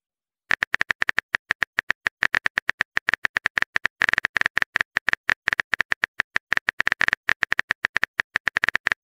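Phone keyboard typing sound effect: rapid, even clicks, several a second, as a text message is typed out letter by letter, starting about half a second in.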